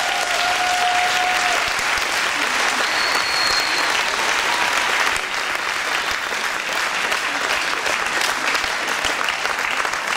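Audience applauding: many hands clapping densely, easing off a little about halfway through.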